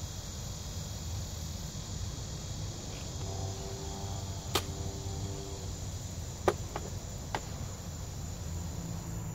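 Umarex Surge break-barrel air rifle shooting: a sharp crack about halfway through, then the loudest crack about two-thirds in, followed quickly by two fainter clicks.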